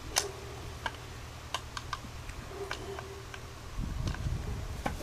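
Scattered light metallic clicks and taps from hands and a tool working on metal parts at the base of a concrete mixer, over a steady low rumble.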